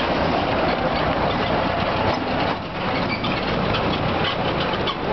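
Auto rickshaw engine running steadily, heard from the passenger seat during the ride, with a brief dip in level about two and a half seconds in.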